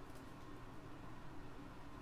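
Quiet room tone with no distinct sound.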